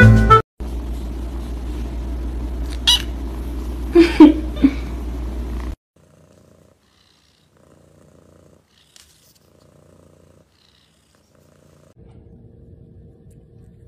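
A cat purring steadily for about five seconds, with a few short, higher vocal sounds about three and four seconds in, then stopping abruptly.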